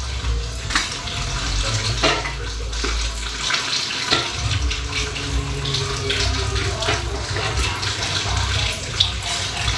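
Kitchen noise: a steady hiss with a low rumble that drops out about a third of the way through, and several knocks and clatters of items being handled.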